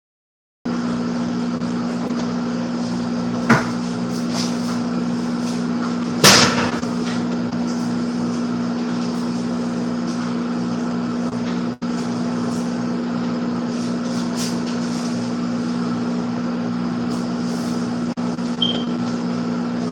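Steady electric motor hum from a household appliance, starting abruptly about a second in and holding unchanged. A sharp knock comes about three and a half seconds in and a louder clatter a few seconds later.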